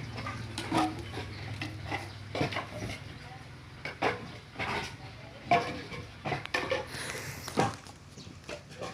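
Wood knocking and clattering at an irregular rhythm as planks or logs are unloaded by hand and dropped onto one another. A low engine hum runs under the first few seconds and fades out.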